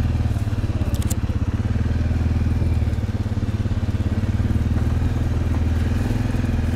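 ATV engine running steadily at low speed with an even, pulsing beat, with a brief clatter about a second in.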